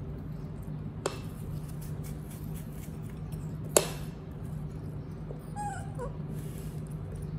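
A baby monkey gives a short run of thin, wavering squeaks a little past five seconds in, over a steady low hum. Two sharp clicks come about one second and about four seconds in; the second is the loudest sound.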